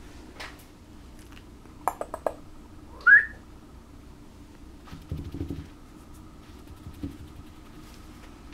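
A few sharp clicks, then one short rising squeak, the loudest sound, followed by soft bumps of a small puppy being handled on a towel.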